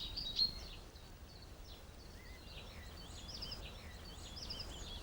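Faint, rapid high chirps and cheeps from small birds, growing busier toward the end, over a low steady background rumble.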